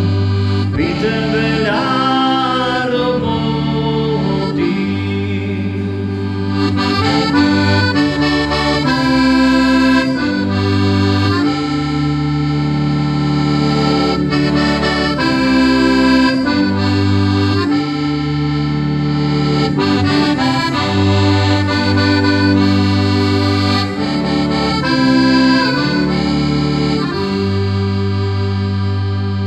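Piano accordion playing a Slovak folk tune on its own, a melody on the treble keys over bass notes and chords that change every second or two.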